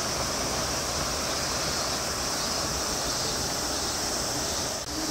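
A steady hissing, rushing noise with no breaks, strongest in a high band.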